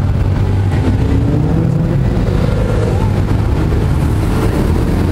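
Steady low rumble of road traffic, cars driving past on a busy avenue.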